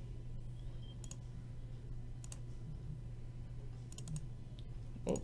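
Scattered clicks from a computer mouse and keyboard: single clicks, then a quick run of three about four seconds in, over a steady low hum. A short dull thump near the end is the loudest sound.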